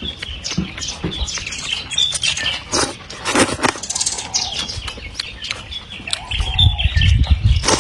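Close-up eating sounds of a person eating chicken soup: quick, irregular smacks and clicks of chewing and slurping, with a low rumble near the end.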